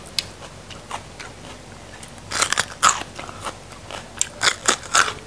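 Crisp crunching bites and chewing of raw bitter melon (pare), starting about two seconds in, with a cluster of sharp crunches near the end.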